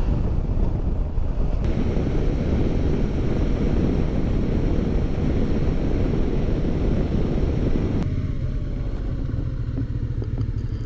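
Motorcycle engine running under way, with wind rushing over the microphone. About eight seconds in, the wind noise eases and the engine's steady low tone comes through more clearly.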